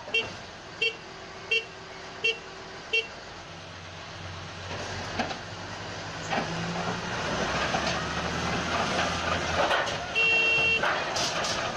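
A heavy crawler bulldozer's diesel engine working and getting louder through the middle of the clip. Over it a reversing alarm beeps about once every 0.7 s for the first three seconds, and one longer beep comes near the end.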